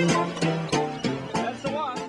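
A small live band with a clarinet playing a lively tune, with held notes over sharp rhythmic strikes.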